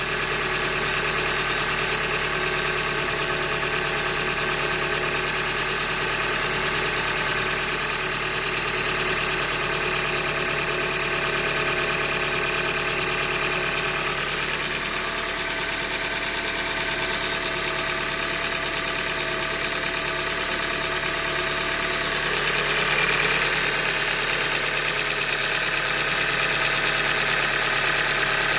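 2015 Hyundai Elantra Limited's four-cylinder engine idling steadily with a rhythmic knock, the sign of a failing short block that was put down to a manufacturing defect.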